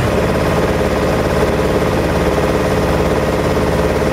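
A boat's engine running steadily while under way, heard from on board, with a fast, even throb.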